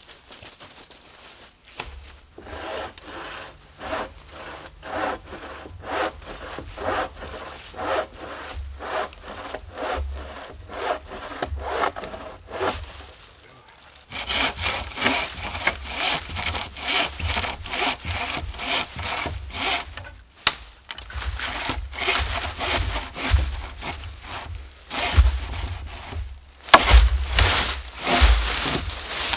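A hand bow saw cutting through dead tree wood in steady, rhythmic back-and-forth strokes. The sawing pauses briefly about halfway, then resumes and is louder near the end.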